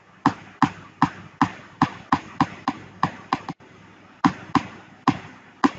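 Metal-on-metal tapping: about fifteen sharp strikes, roughly three a second, each with a short ring, as the steel E-I laminations of a small transformer core are knocked loose. A brief pause past the middle, then four more strikes.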